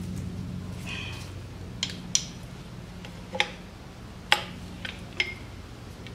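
Screwdriver clicking and tapping against the metal water pump of a 1983 Honda VF750F engine as the pump is pried out. There are about six sharp metallic clicks between two and five seconds in, over a low steady hum.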